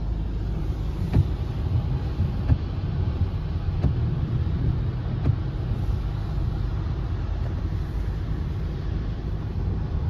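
Steady low rumble of a Hyundai car's engine and tyres, heard from inside the cabin while it drives on a wet highway. A few soft knocks come about every second and a half in the first half.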